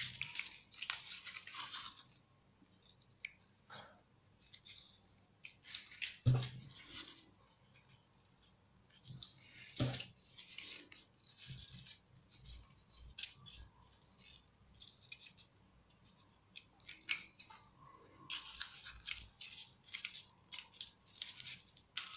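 Rustling and light scraping of paper leaves and rolled-paper tubes being handled and pressed into place, broken by short taps, with a sharper knock about six seconds in and another near ten seconds.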